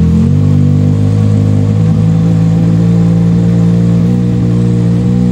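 Legends race car's Yamaha inline-four motorcycle engine idling fast and steadily at about 2250 rpm, just after being started.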